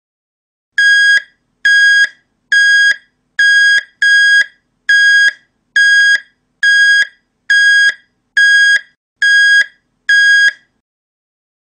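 Electronic alarm beeping: twelve identical short, high-pitched beeps at a steady pace of a little more than one a second, the station's warning that the spray nozzle is not properly inserted.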